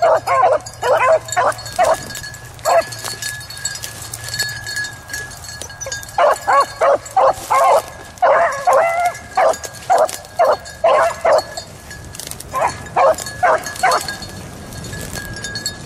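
Beagles baying in runs of quick, high yelping barks, the cry of hounds running a rabbit's track. The baying pauses a few seconds in, comes back in a long run, then breaks off briefly and calls again before stopping near the end.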